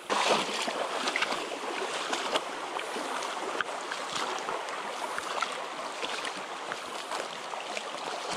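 Someone wading briskly through a shallow, gravelly creek riffle: splashing steps and water rushing around the legs, with many small clicks and knocks of stones underfoot.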